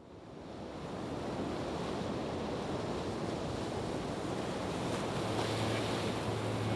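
A steady rushing noise fades in over the first second or so. A low steady hum joins about five seconds in as background music begins.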